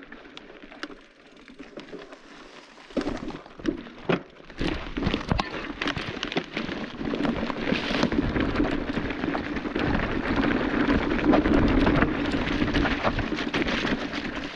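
Electric mountain bike riding over a rocky trail. The first few seconds are quieter with a few clicks, then tyres crunch and the bike rattles over stones, with a steady low hum underneath.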